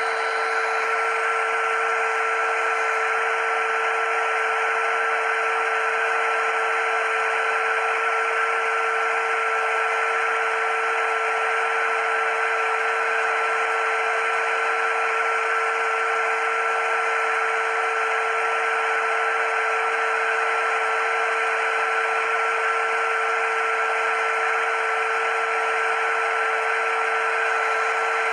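Small electric motor running steadily with a constant high whine and an airy hiss, without a change in speed.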